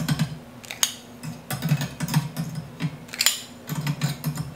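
Plates clinking and knocking against the wire slots of a metal dish drying rack as they are set in one at a time, a series of separate clicks with short gaps between them.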